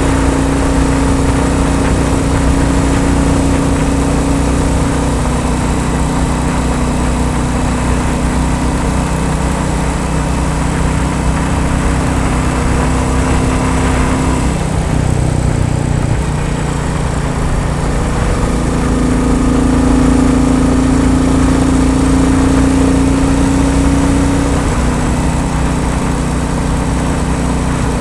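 Royal Enfield Bullet 350's single-cylinder engine running steadily. Its pitch drops about halfway through and comes back up a few seconds later.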